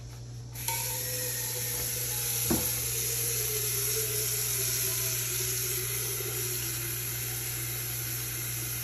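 Kitchen faucet running, a stream of tap water pouring into a metal cooking pot to fill it. The water comes on about half a second in and runs steadily, with one brief knock a couple of seconds later.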